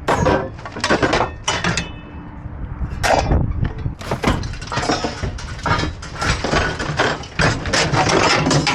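Junk being shifted and pulled around inside a dumpster: a run of irregular knocks, bangs and clatter from hard objects, with a brief metallic ring a little over a second in.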